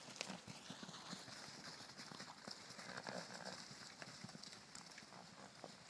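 Hooves of several horses trotting and cantering on grass: a scatter of soft, irregular hoofbeats.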